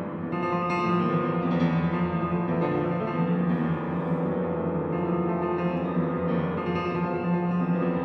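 Instrumental background music: sustained notes over a steady low drone, with new notes coming in every second or so.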